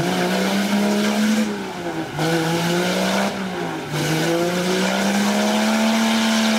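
Nissan Patrol's engine revving hard as the 4x4 churns through deep mud. The revs climb, fall back sharply twice, then hold high and steady.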